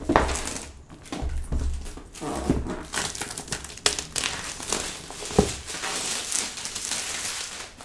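Clear plastic shrink wrap being peeled and pulled off a cardboard laptop box, crinkling and crackling throughout, with a couple of sharp snaps in the second half.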